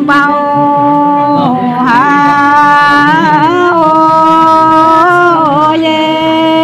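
Dao Tẩn Mìn women singing an antiphonal folk song in long held notes, each note joined to the next by a short slide in pitch.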